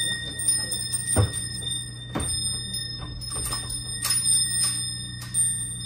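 Ticking, about two or three ticks a second and not quite even, over a steady high ringing tone and a low steady hum.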